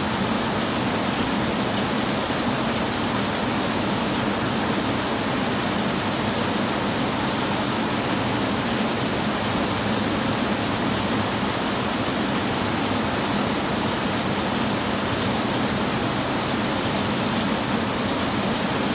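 Heavy rain on a tin roof, heard as a steady, even hiss with no thunder.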